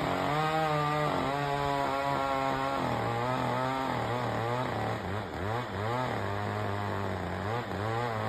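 Two-stroke chainsaw running at high revs for about three seconds, then dropping to a lower pitch and revving up and down in quick repeated blips.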